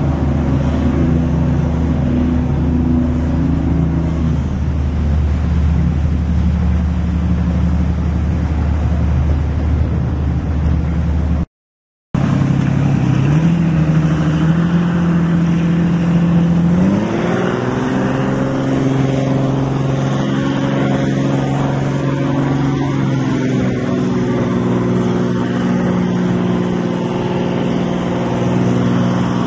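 Marine diesel engine of a harbour tugboat running close by, a steady deep drone. About seventeen seconds in the engine revs up and holds at the higher speed, with a brief dropout in the sound shortly before.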